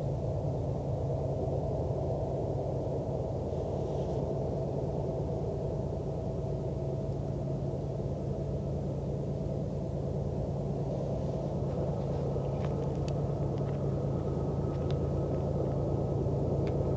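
Distant diesel locomotives of a GE ES44DC-led double-stack freight train, rumbling steadily with a low engine hum as the train approaches, a little louder near the end. A few faint clicks in the second half.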